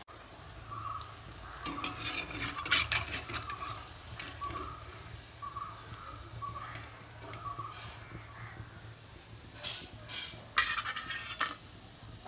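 Uzhunnu vadas (urad dal fritters) deep-frying in an iron kadai with a steady sizzle. A perforated steel skimmer scrapes and clinks against the pan and the steel plate, loudest about two seconds in and again about ten seconds in.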